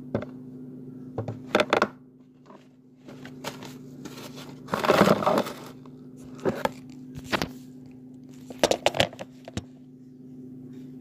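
Toys handled at close range in a wooden dollhouse: scattered clicks and knocks of small plastic pieces, and a rustle of crinkling plastic about five seconds in. A steady low hum runs underneath.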